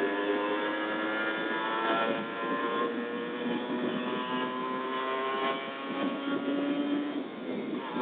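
Kawasaki Ninja motorcycle engine running at speed under the rider, its pitch climbing slowly as it accelerates, with brief shifts in pitch around two and five seconds in.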